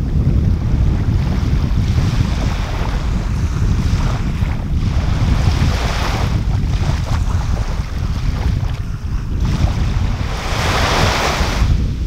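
Small waves washing up on a sandy beach, with a constant low wind rumble on the microphone. The wash swells twice, around the middle and again near the end.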